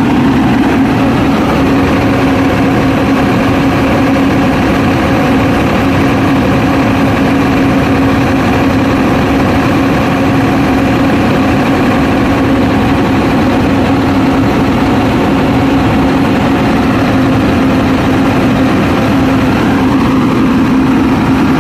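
Scania R580's DC16 V8 diesel engine idling steadily, heard close up, with an even low drone and a strong constant hum.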